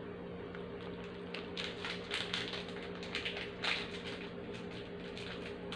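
Plastic wrapper of a Cream-O sandwich cookie packet crinkling and crackling as it is handled and opened, in a burst of clicks from about a second and a half in to about four seconds, over a steady low hum.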